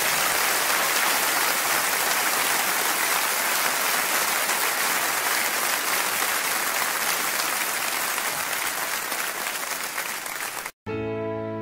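Applause from a small group, a steady patter of many hands that eases slightly, then cuts off abruptly near the end, where soft music with held notes begins.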